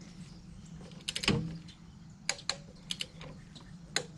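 Scattered sharp metallic clicks from hand tools being handled and set: a quick cluster of clicks with a dull knock about a second in, then single clicks every half second or so over a faint steady hum.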